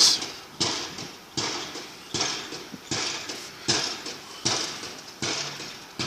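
Pile-driving hammer striking a pile in a steady rhythm, about one blow every three-quarters of a second, each a sharp bang that fades away before the next.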